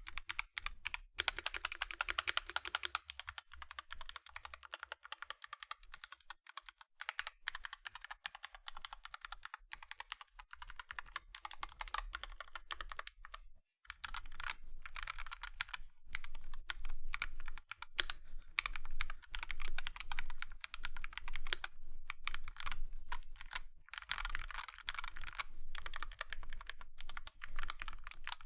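Fast, continuous typing on a Dark Project KD83A Limited mechanical keyboard with Gateron Cap Teal switches, a rapid run of key strikes. The typing breaks off briefly just before halfway and comes back louder.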